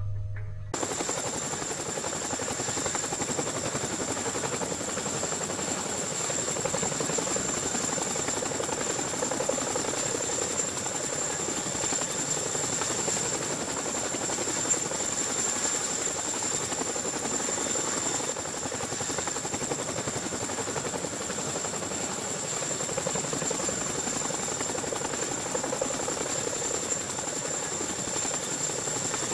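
CH-47 Chinook tandem-rotor helicopter hovering low overhead: steady rotor and engine noise with a constant high whine, starting suddenly about a second in.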